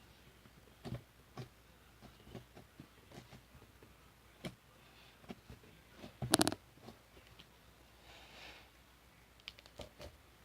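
Slime being handled by hand: scattered soft clicks and pops, with one louder pop about six seconds in.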